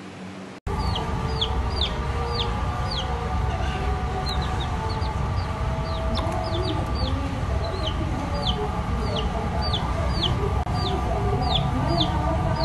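Baby chick peeping again and again, each peep a short high note falling in pitch, about two a second, over a steady low hum.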